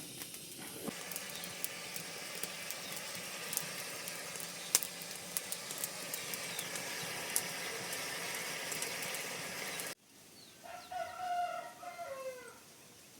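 A steady hiss with scattered clicks, then a sudden break, after which a rooster crows once for about two seconds, the call dropping in pitch at the end.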